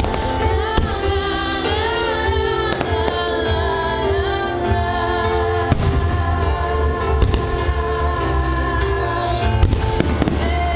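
A song with singing plays over the loudspeakers of a fireworks display, while fireworks shells go off in sharp bangs every second or two, a quick cluster of them near the end.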